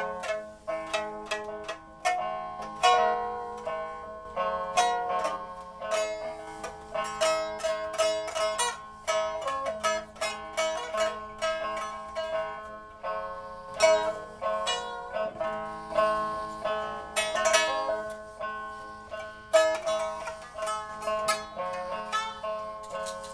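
Instrumental music on a plucked zither: a quick, steady run of plucked notes, each struck sharply and left to ring and fade.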